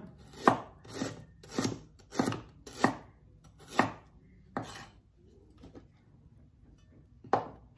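Cleaver slicing a knob of fresh ginger on a wooden cutting board. About seven sharp knocks of the blade on the board come roughly every half second, then there is a pause and one more knock near the end.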